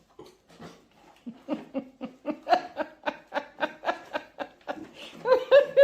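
Laughter that starts faint and builds into rapid, rhythmic bursts, about four a second, growing louder toward the end.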